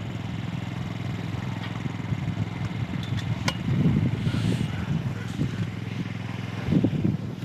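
An engine running steadily with a low rumble, swelling a little about four seconds in and again near the end, with one sharp click partway through.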